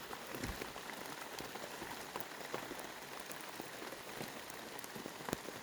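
Steady rain falling, with many separate drops striking close by as short sharp ticks.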